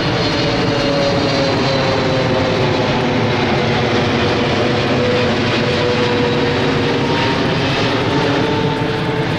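Loud, steady engine drone whose pitch sinks slowly.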